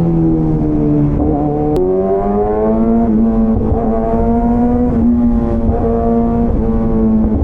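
Superbike engine and exhaust running under way. The note sags over the first second and a half, steps up abruptly, then rises and holds steady.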